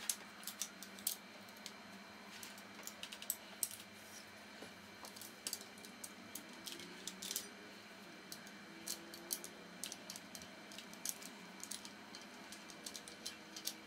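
Irregular metal clicks and clinks from an M1 carbine's steel parts being handled and taken apart, the barrel and receiver group lifted from the stock and worked by hand.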